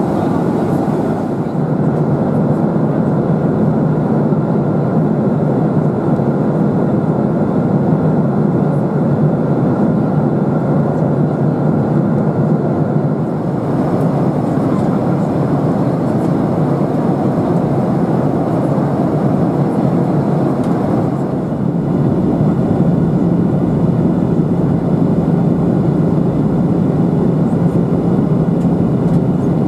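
Steady in-cabin noise of a Boeing 737-800 in flight on approach: the CFM56-7B engines and the air rushing past the fuselage make a continuous low drone. Its tone shifts slightly a couple of times.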